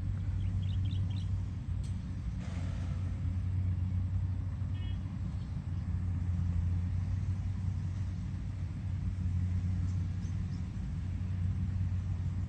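Steady low engine drone, unchanging, with a few faint high chirps about a second in.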